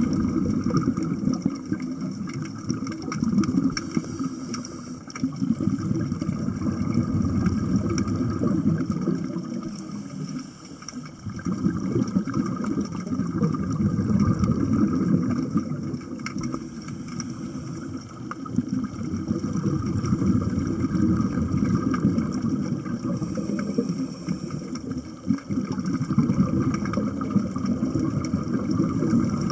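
Underwater scuba breathing: exhaled bubbles from the regulator make a low, swelling rumble, and a brief hiss of the regulator on each inhale comes back about every six to seven seconds.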